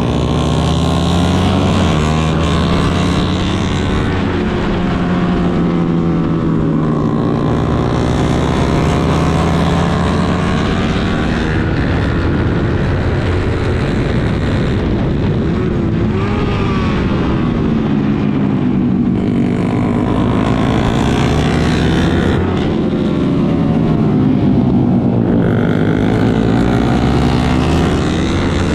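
Suzuki GSX-R150's single-cylinder engine revving hard, its pitch climbing and falling back several times as the revs rise and drop.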